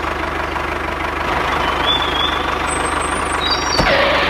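Tractor engine running steadily with a fast, even chug, with a few short high chirps over it.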